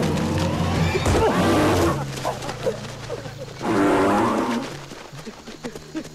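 Asian elephant calls over a low steady drone, the loudest a pitched bellow about four seconds in.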